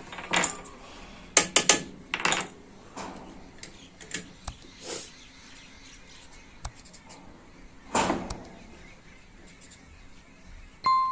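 Irregular metallic clicks and clanks of hand tools working on a sewing machine's nut and frame, with a short ringing ding near the end.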